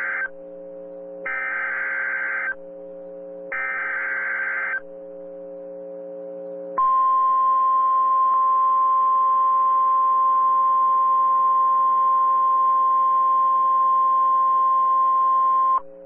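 NOAA Weather Radio Emergency Alert System signal: three short bursts of buzzy SAME digital header data, then after a brief pause the steady single-pitch Warning Alarm Tone, held for about nine seconds before it cuts off. The sequence announces a new tornado warning about to be read.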